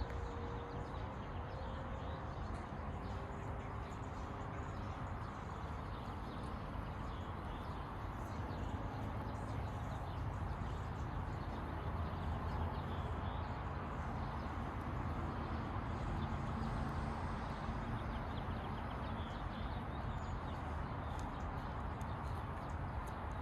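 Steady outdoor ambient noise, strongest in the low end, with faint short chirps or ticks scattered through it.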